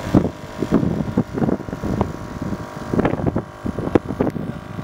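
Toyota Land Cruiser driving over desert sand dunes, heard from on board: a low engine and tyre rumble with irregular bumps and jolts, and wind buffeting the microphone.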